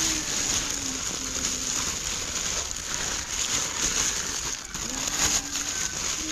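Red cellophane crinkling and crackling as hands gather and twist it around a wrapped fruit basket.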